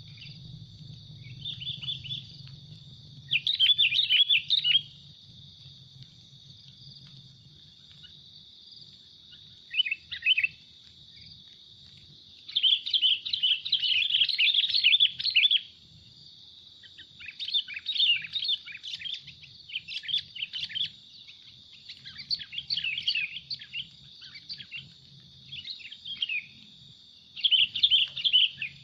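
Sooty-headed bulbuls (kutilang) calling in repeated bursts of rapid, bubbly chattering, some lasting a few seconds, over a steady high hum.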